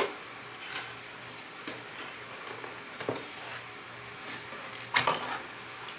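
Camera box and its packaging being handled and unpacked: a sharp knock at the start, scattered soft rustles and taps, and a louder crinkling rustle about five seconds in.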